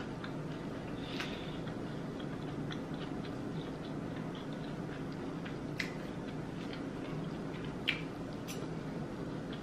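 A person chewing food with the mouth close to the microphone, soft mouth sounds with a few faint clicks, over a steady low background hum.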